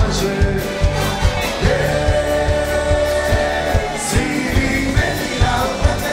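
Live band playing dance music with a steady drum beat and singing, including one long held note in the middle.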